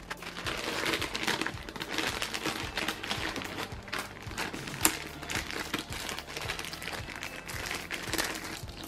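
Clear plastic hardware bag crinkling as it is handled and opened, with small screws and standoffs shifting inside. A single sharp click stands out about five seconds in.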